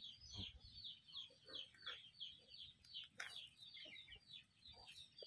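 Faint, rapid peeping from a bird, short falling chirps repeating about four or five times a second without a break. A single sharp click about three seconds in.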